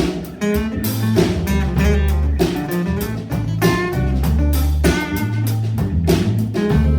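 Live rock band playing an instrumental break: guitar over bass guitar and drum kit, with deep bass notes and cymbals keeping a steady beat.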